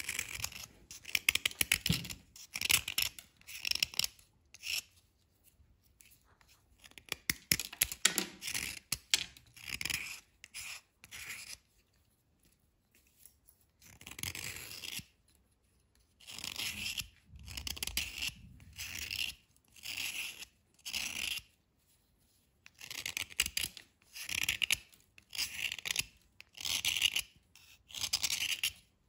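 A small knife blade scraping the surface of a dry, chalky white bar, shaving off powder in quick rasping strokes. The strokes come in runs broken by a few short pauses.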